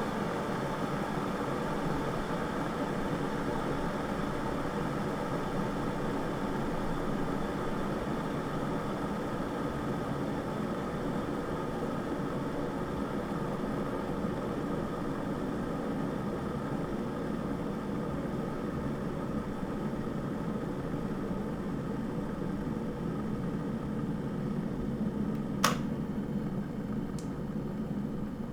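Electric kettle heating water near the boil with a steady rumbling hiss. About 26 seconds in, a sharp click, followed by a fainter click about a second and a half later, is the switch turning off as the water reaches the boil. After it the boiling noise begins to die away.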